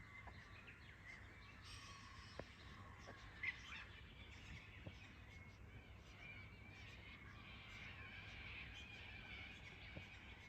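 Faint bird calls and chirps, with one louder call about three and a half seconds in and a denser stretch of calling near the end.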